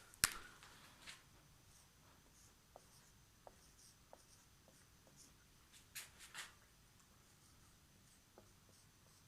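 Quiet handling sounds at a desk: a sharp click just after the start, a few soft ticks, and two brief scratching sounds about six seconds in.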